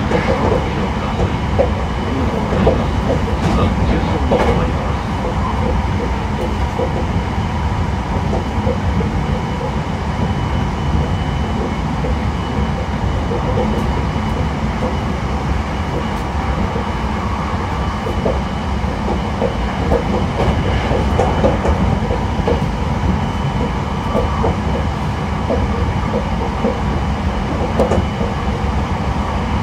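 Hankyu 9000-series electric train with a Toshiba IGBT inverter running at a steady speed, heard inside the car: a loud, even rumble of wheels on rail with occasional clacks.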